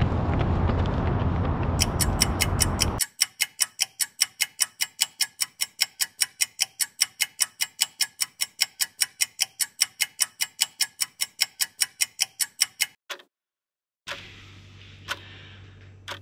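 Clock ticking, rapid and even at about four ticks a second for some ten seconds, then cut off abruptly, used as a countdown sound effect. It begins over steady vehicle and wind rumble that stops about three seconds in; after the ticking, faint room tone with a single click.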